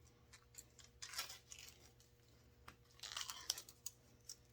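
Faint scraping and small clicks of a Husqvarna 55 chainsaw's recoil starter spring being wound by hand into its housing, in two short spells, about a second in and again about three seconds in.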